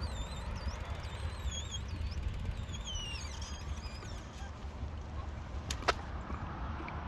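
Outdoor ambience: a steady low rumble of wind and road traffic. High warbling whistles run through the first three seconds or so, and there is one sharp click near six seconds.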